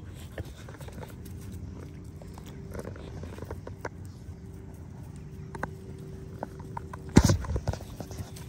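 Dogs moving about close to the microphone on grass, with scattered light clicks and rustles, and one short loud burst about seven seconds in.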